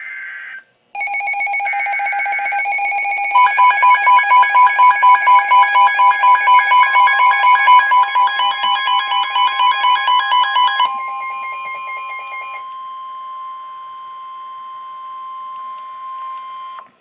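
Emergency alert tones at the start of a flood warning: short buzzy data bursts, then a loud electronic alarm pulsing about three times a second, then a single steady warning tone for about six seconds that cuts off just before the end.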